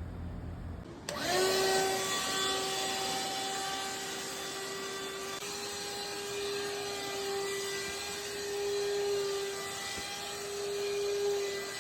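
Ceiling-mount fan coil's blower running: a steady rush of air with a constant motor whine over it, starting about a second in, as the newly installed air handler cools.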